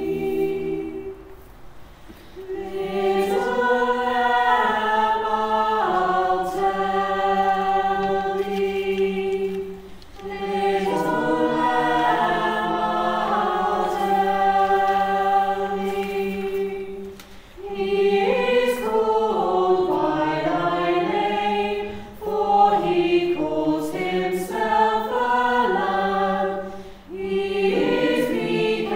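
Chamber choir singing in long, sustained phrases, each ending in a brief dip before the next phrase begins.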